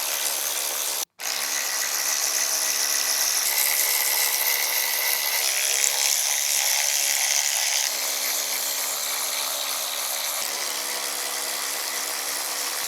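Power tool running steadily with a whirring hum, taking out the 12-point bolts that hold the flywheel to the engine's crankshaft. The sound cuts out briefly about a second in.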